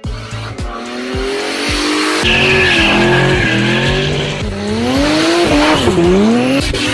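Drift car engine held at high revs with the tyres squealing as the car slides. The engine pitch climbs and falls, dipping sharply and then rising again near the end.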